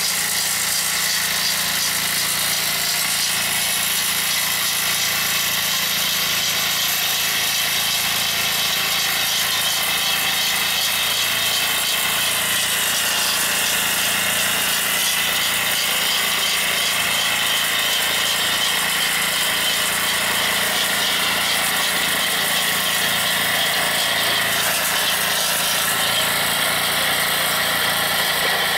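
Kalis power weeder's 5 hp Greaves Cotton single-cylinder diesel engine running steadily under load, its front rotary blades churning soil and throwing it up into ridges.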